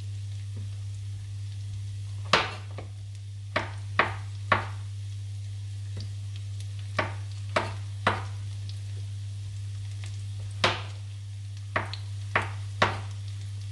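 Chef's knife slicing button mushrooms on a bamboo cutting board: about eleven sharp knocks of the blade on the board, in small irregular groups.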